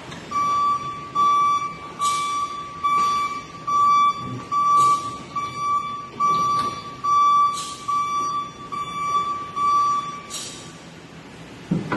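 Electric walkie stacker's warning beeper: a single high-pitched beep repeating about every 0.7 seconds while the stacker moves the pallet load, stopping about ten seconds in.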